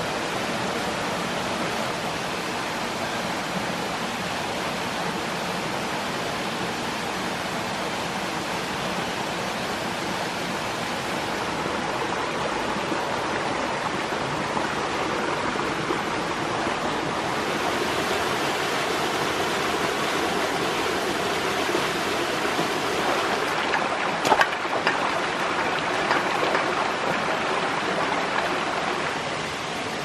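Steady rushing of a shallow rainforest stream and small waterfall, turning brighter a little past halfway. A few short, sharp knocks about three quarters of the way through are the loudest moments.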